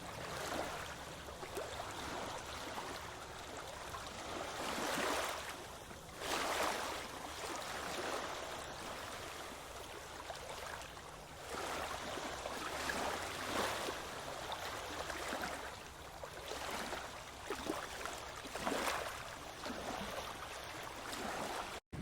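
Sea surf washing ashore in repeated swells, a wave surging up every few seconds, with wind rumbling on the microphone.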